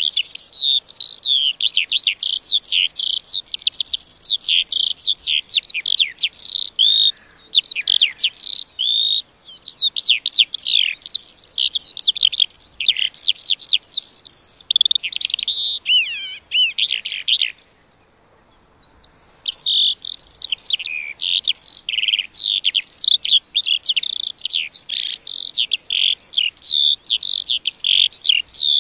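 Lark singing a long, rapid, unbroken run of chirps, trills and warbled notes. It breaks off for about a second and a half around two-thirds of the way through, then starts again.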